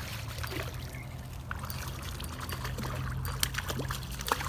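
Water trickling and splashing, with scattered faint clicks.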